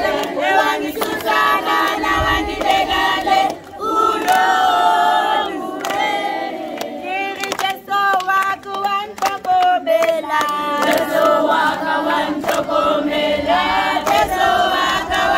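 A crowd of children and adults singing together with hand-clapping.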